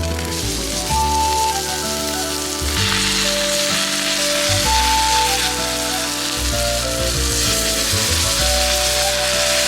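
Food sizzling in a hot skillet under background music, the sizzle getting louder about three seconds in.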